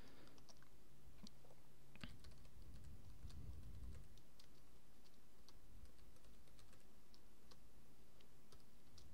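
Faint typing on a computer keyboard: scattered keystroke clicks over a low steady hum.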